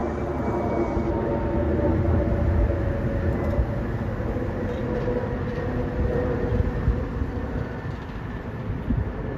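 VIA Rail passenger train approaching from a distance: a steady rumble from its diesel locomotive, with a hum of several steady tones above it.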